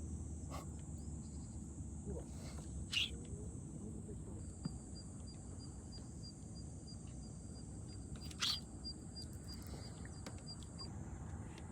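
Summer insects calling in a steady high-pitched hiss, joined for about six seconds in the middle by a rapid ticking call of about four ticks a second. A few brief sharp sounds come about half a second, three seconds and eight and a half seconds in.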